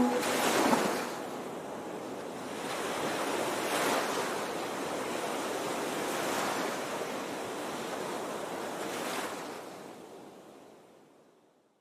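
Small waves lapping and washing over a shallow sandy shore close to the microphone. A swell comes in every few seconds, and the sound fades out near the end.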